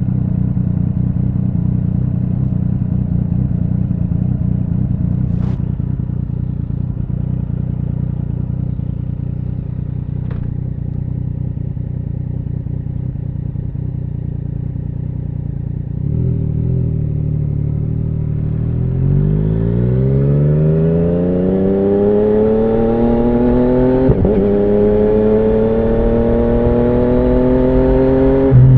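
2017 Yamaha MT-09's three-cylinder engine through an Akrapovic Racing Line carbon full exhaust, idling with a steady low burble, then pulling away from about halfway, its note climbing steadily in pitch and getting louder, rising more slowly over the last few seconds.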